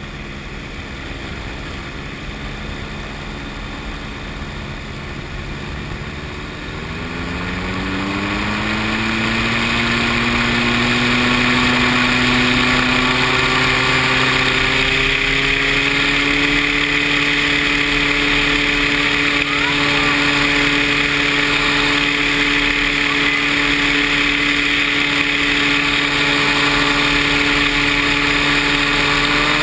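An engine running steadily, then speeding up smoothly over about five seconds to a higher, louder speed that it holds. It rises a little again at the very end.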